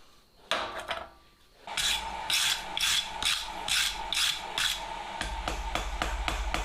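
Rhythmic back-and-forth rasping strokes, about two and a half a second, starting nearly two seconds in, over a steady hum.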